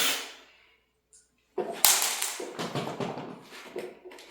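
A power drill unscrewing a door-hardware screw winds down and stops in the first half-second. After a short pause come clicks, a sharp snap and rattling as the loosened metal hardware is worked free and handled.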